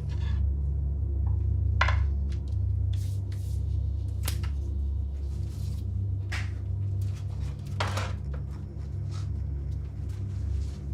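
Horror film soundtrack: a steady low drone with a few short knocks and scrapes over it, the strongest about two seconds in and again about eight seconds in.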